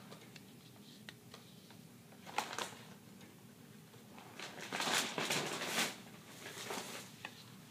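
Faint rustling and light tapping of hands handling a hollow plastic toy bowling ball, in a few short bursts.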